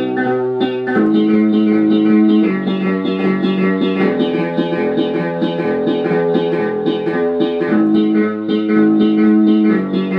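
1970 Orla Carousel electronic keyboard playing held chords that change several times, with quick repeated notes sounding over them.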